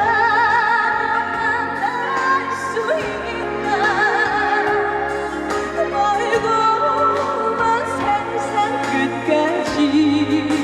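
Live music: a female singer holding sung notes with a wide vibrato over a backing band accompaniment.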